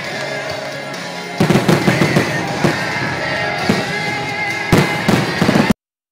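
Aerial fireworks going off, with sharp bangs coming thick from about a second and a half in, over music. The sound cuts off abruptly near the end.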